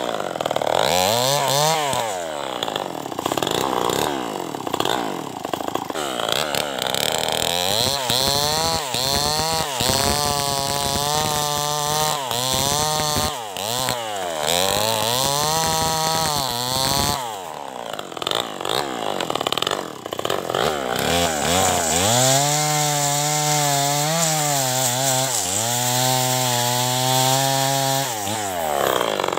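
Stihl 070 two-stroke chainsaw cutting through a dry dead log, its engine pitch repeatedly rising and falling as the saw is revved and loaded in the cut. The engine drops back briefly a few times between cuts, then revs up again near the end as a new cut begins.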